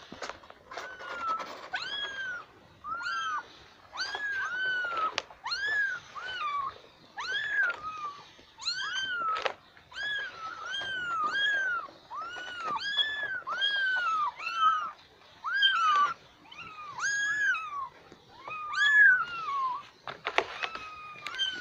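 Kittens mewing over and over, high-pitched calls that rise and fall, about one a second, with a few sharp clicks in between.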